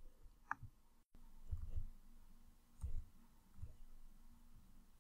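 Quiet room tone with a faint steady hum, broken by a few faint low thumps and a short soft click.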